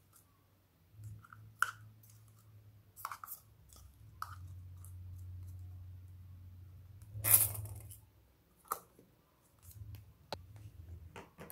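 Yellow slime being poured from a plastic tub into a glass bowl of slime and pushed off with fingers: scattered soft sticky clicks and crackles, with a louder crackling rustle about seven seconds in.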